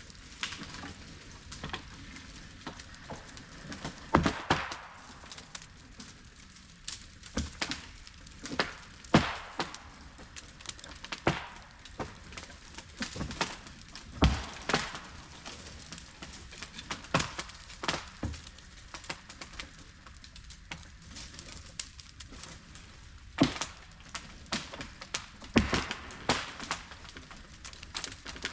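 Irregular snapping and crunching of twigs and wood, with sharper cracks about 4, 9, 14 and 23 seconds in.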